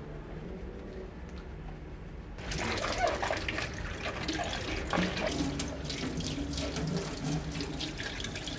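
Kitchen tap water running into a stainless steel sink and splashing over a plastic container as it is rinsed. The flow starts suddenly about two and a half seconds in, with a few light knocks.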